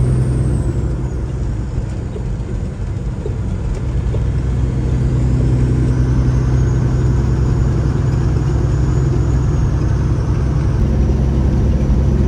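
Freightliner Classic semi truck's diesel engine running steadily with a deep hum, dipping slightly about two seconds in and then picking back up.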